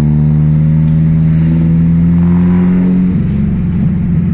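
Chevrolet Kadett's four-cylinder engine through a straight-pipe exhaust with no muffler, heard from inside the cabin: a steady, loud exhaust drone pulling in gear, its pitch rising slightly. About three seconds in the note breaks into an uneven, choppy rumble for about a second, then steadies again.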